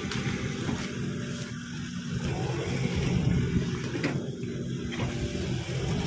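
Hydraulic excavator's diesel engine running steadily while it digs.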